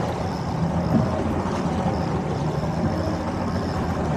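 Outboard motor running steadily at low speed, with wind and water rushing along the hull.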